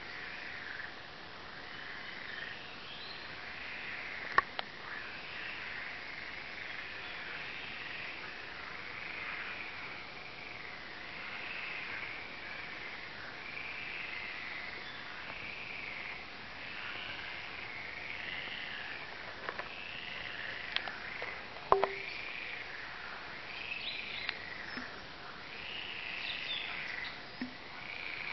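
Chorus of many frogs calling over one another in a continuous run of overlapping croaks that rise and fall in pitch. A sharp knock sounds about four seconds in and another about two-thirds of the way through.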